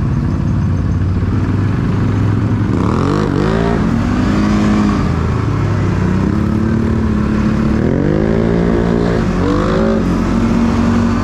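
ATV engine running under way, revving up in rising sweeps about three seconds in and again around eight to ten seconds, settling to a steady pitch in between.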